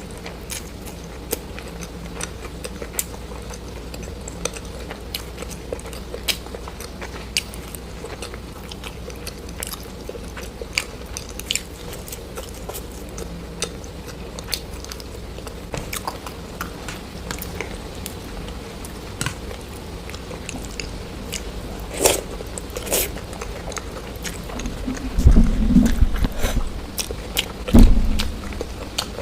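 A person chewing and biting crunchy food close to the microphone: a string of sharp crunches and mouth clicks over a steady low hum, with a few louder, deeper bursts near the end.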